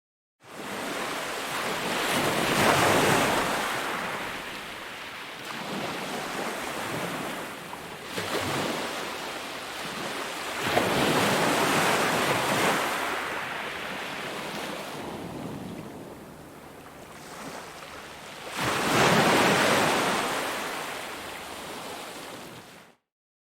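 Ocean surf: waves breaking and washing in, with three big swells about eight seconds apart and softer wash between. The sound starts about half a second in and cuts off suddenly near the end.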